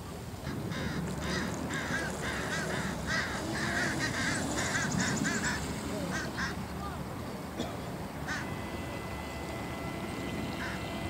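Duck quacking in a quick run of short calls, about two or three a second, for about five seconds, then a couple more after a short pause, over a steady low rumble.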